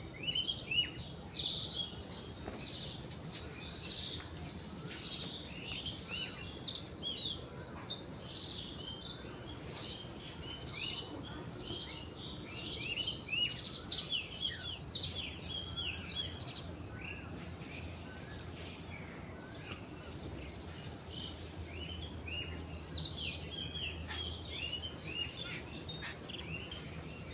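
Many small birds chirping and twittering at once, a dense chorus of short high calls, over a steady low background hum.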